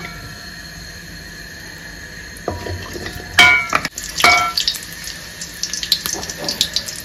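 Butter sizzling in a hot metal kadai. A metal ladle clanks against the pan twice, about three and a half and four and a half seconds in, each clank ringing briefly. Small crackles follow as it is stirred.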